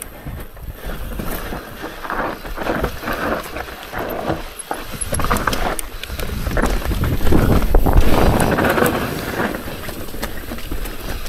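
Rocky Mountain Altitude mountain bike descending rocky, rooty singletrack: tyres crunching over dirt and rock, and the bike clattering over the bumps, with wind on the microphone. Loudest and roughest about seven to nine seconds in.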